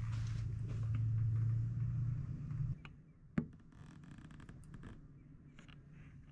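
A steady low hum, like a room appliance or ventilation running, that stops abruptly about three seconds in. A single sharp click follows, then faint light handling ticks.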